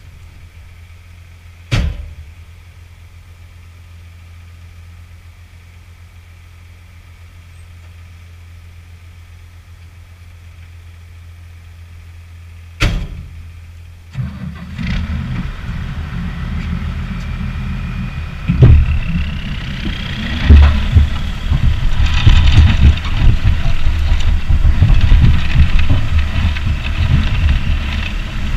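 Two sharp knocks over a quiet low hum, then about 14 s in a tractor engine starts and runs loud, with a whine that climbs in pitch as the tractor pulls away.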